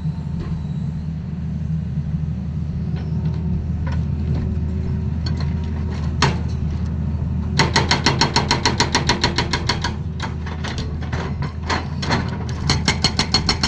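Excavator diesel engine running steadily while a hydraulic breaker hammers in rapid runs of about five blows a second, one starting about halfway through and lasting a couple of seconds, and another near the end.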